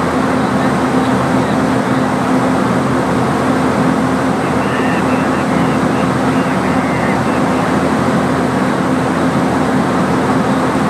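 Steady loud running noise from underneath a stopped locomotive: a constant low hum with a broad hiss over it.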